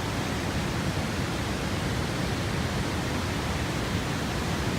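Waterfall rushing steadily, an even wash of water noise with no breaks.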